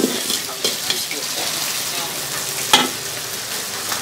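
Vegetables sizzling as they are stir-fried in a steel wok, with a steady hiss. A metal ladle scrapes and knocks against the wok several times, loudest about three quarters of the way through.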